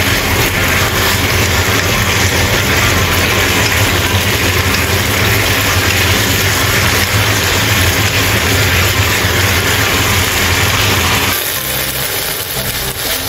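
Lotus root slices and shredded dried squid being stir-fried in a wok with a wooden spatula: steady sizzling over a low, even hum. About eleven seconds in, the hiss and the hum drop and the sound turns quieter and thinner.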